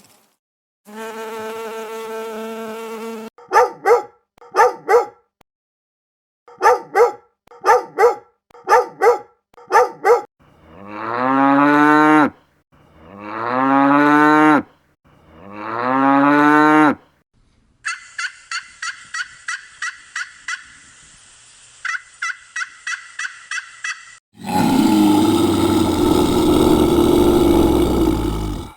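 A sequence of separate animal sound clips: a steady buzz, then two and then five short pitched calls, three long calls that rise in pitch, a fast run of short chirping pulses, and a loud rough call near the end.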